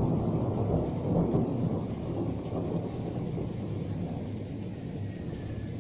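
Rolling thunder from a thunderstorm several kilometres away, a low rumble that slowly dies away.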